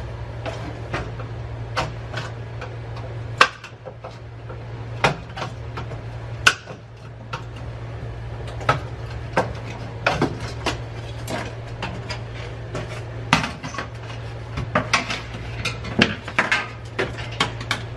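Irregular clinks, clicks and knocks of a fluorescent light fixture being pulled apart: the sheet-metal housing and plastic lamp holders knock about as the wiring is pulled out. A few sharper knocks stand out, over a steady low hum.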